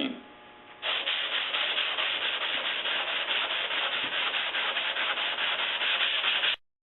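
Hand sanding with sandpaper on a block over a wooden bevel, in fast, regular back-and-forth strokes that smooth away shallow cut facets. The sound starts just under a second in and stops abruptly near the end.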